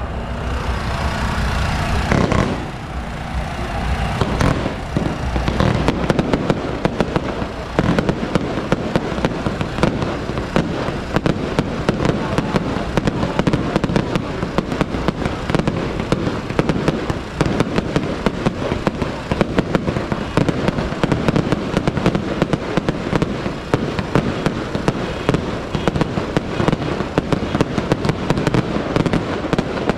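Firecrackers and fireworks going off in an unbroken barrage of sharp bangs and crackling. The bangs come faster and denser from about six seconds in.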